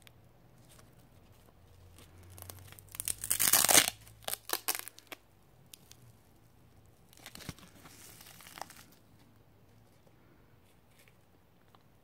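Hook-and-loop (Velcro) fastener being peeled apart: one long, loud rip about three seconds in, a few short rips right after, and a softer, longer peel around the middle.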